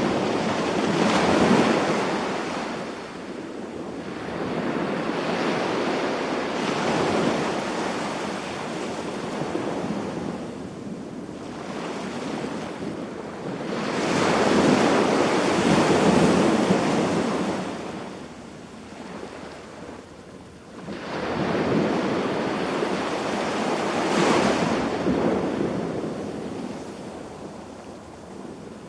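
Sea waves washing onto the beach, each surge swelling and then fading away over several seconds, about four times.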